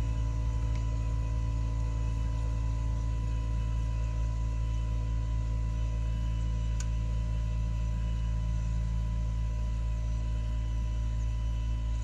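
Outdoor unit of a Gree Versati III 8 kW split air-to-water heat pump running with a steady deep hum and several steady higher tones, its coil frosted over, the condition that calls for a defrost. A pulsing throb in the low hum fades out in the first few seconds, and there is a single short click about seven seconds in.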